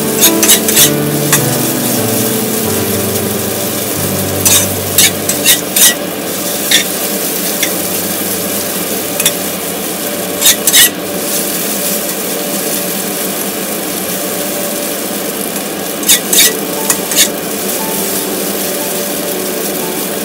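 Mian chang (flour-and-tapioca noodle rolls) sizzling as they stir-fry in a stainless steel wok, with a steady frying hiss. Every few seconds a metal spatula scrapes and clinks against the wok in short clusters.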